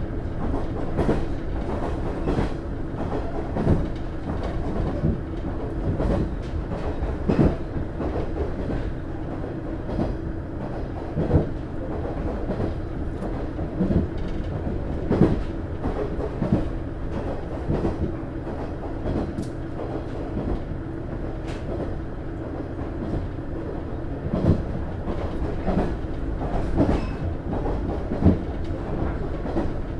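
Cabin running noise of a KiHa 110 series diesel railcar (KiHa 110-135) under way: the steady drone of its DMF14HZA diesel engine, with wheels clicking over rail joints about every second or two.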